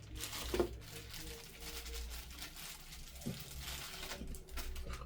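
Packaging being handled and opened, with irregular crinkling and rustling as a small camera accessory is unwrapped.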